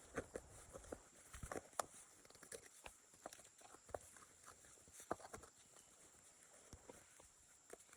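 Faint, scattered crackles and light knocks, a few each second, thinning out about halfway through, over a steady high-pitched tone.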